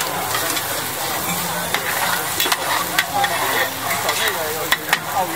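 Oyster omelette frying in oil in a large flat wok, with a steady sizzle as it is stirred, and several sharp clinks of metal utensils against the pan.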